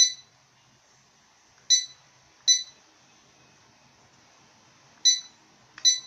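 Digital school bell controller beeping five times, short high-pitched beeps at uneven intervals, each one acknowledging a key pressed on its remote while the alarm time and duration are entered.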